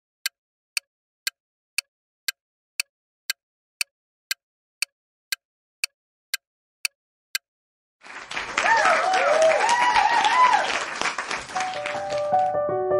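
Countdown clock ticking about twice a second for roughly seven seconds, then a crowd cheering and applauding with whoops, followed near the end by piano music.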